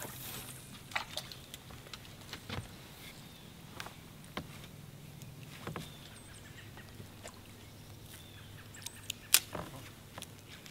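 Scattered sharp clicks and light knocks from a spinning rod, reel and lure being handled on a fishing boat, over a faint steady low hum. The loudest click comes near the end.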